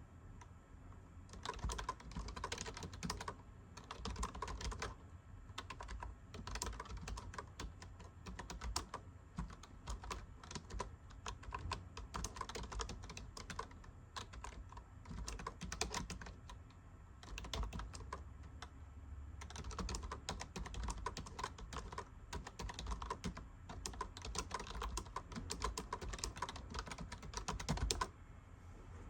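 Fast typing on a computer keyboard, the keyboard of a homemade offline writing device, with brief pauses. It stops about a second before the end.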